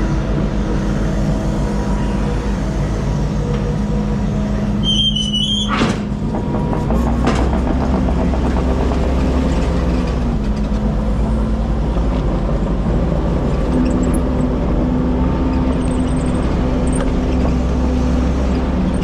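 A heavy work vehicle's engine running steadily under load, with a low rumble. About five seconds in there is a brief high squeal and a sharp clack.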